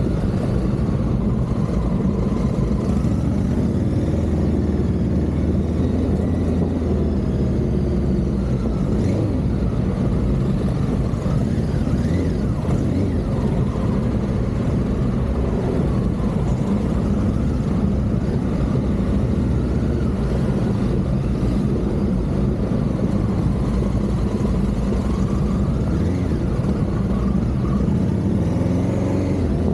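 Honda Africa Twin CRF1100's parallel-twin engine running at low, fairly steady revs as the bike is ridden along, its low note rising and falling slightly.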